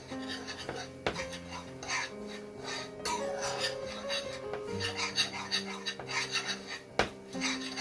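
A utensil repeatedly scraping and rubbing across the bottom of a pan, stirring a butter-and-flour roux for béchamel, with a couple of sharper knocks against the pan; background music plays underneath.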